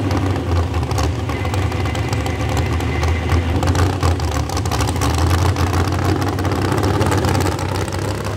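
Small-block V8 of a Chevrolet 4x4 pickup truck idling steadily.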